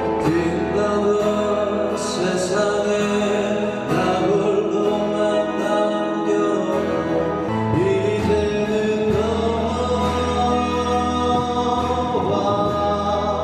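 A small live band playing a song: a man sings lead over strummed acoustic guitar, electric guitar and a drum kit with cymbals.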